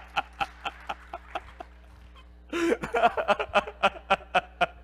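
A man laughing hard in quick ha-ha bursts, about five a second, breaking off for a breath about two seconds in before laughing again.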